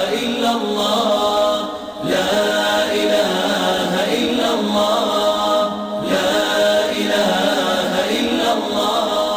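Arabic nasheed sung a cappella by layered voices, chanting in a choir-like blend with no instruments. The phrases break briefly about two seconds in and again about six seconds in.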